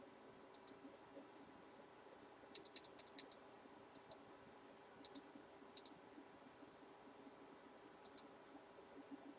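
Faint clicks of a computer mouse, mostly in quick pairs, with a faster run of about six clicks near the three-second mark, over a faint steady room hum.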